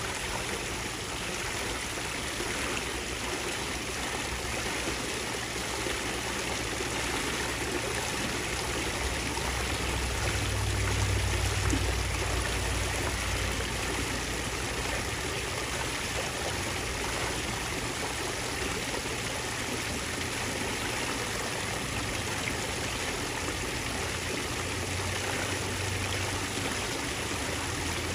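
Steady sound of running, trickling water in a swimming pool. A low rumble swells about ten seconds in and again near the end.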